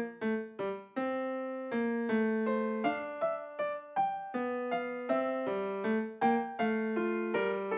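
Background music: a keyboard playing a steady run of separate notes, about three a second, each fading before the next.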